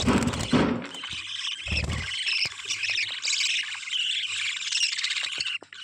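Budgerigars chattering and warbling continuously, with sharp clicks and short squawks mixed in. A few low, muffled bumps come in the first two seconds.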